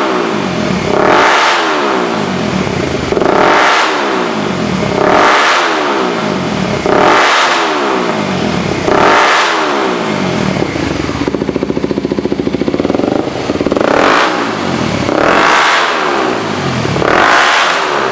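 Kawasaki Ninja 250SL's single-cylinder engine revved through an AHM full stainless and carbon exhaust system: repeated throttle blips about every two seconds, each rising and falling in pitch, with a few seconds of steady idle near the middle before the blips resume.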